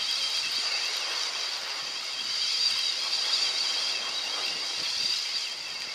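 Steady outdoor hiss, with faint handling noise as a spinning reel is wound in to bring up a small hooked fish.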